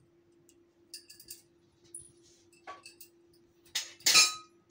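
Ghee heating in a steel kadhai, giving scattered faint ticks and crackles, with one louder crackling burst near the end, over a steady low hum.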